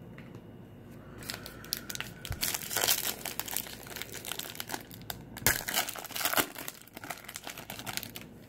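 Foil wrapper of a trading card pack being torn open and crinkled by hand: dense crackling and rustling that starts about a second in, with a few sharper, louder rips along the way.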